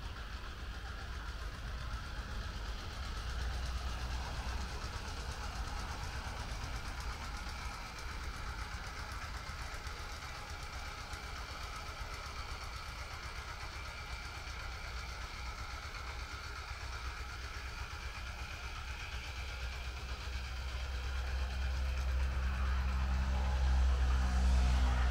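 Low, steady rumble of a motor vehicle's engine. It grows louder near the end, where a steady engine note comes in.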